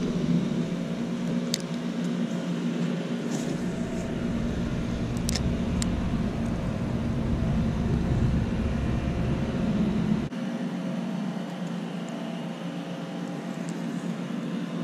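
Small engine of lawn-care equipment running steadily with a low hum, with a few light clicks over it.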